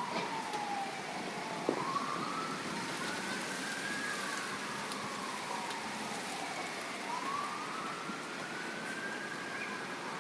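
Fire truck siren sounding a slow wail: the pitch rises, peaks and falls over several seconds, about three sweeps in all, over a steady hiss of rain.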